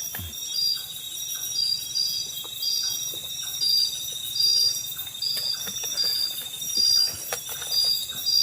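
Chorus of night insects: a pulsed high chirp repeating evenly, about three every two seconds, over a steady high-pitched trill. Faint scattered clicks and light knocks sound in the foreground.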